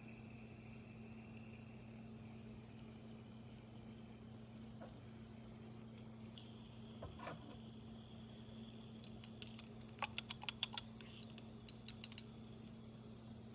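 Glass test tube of magnesium in hydrochloric acid being handled and shaken, giving a quick run of light clicks for about three seconds near the end, over a steady low hum.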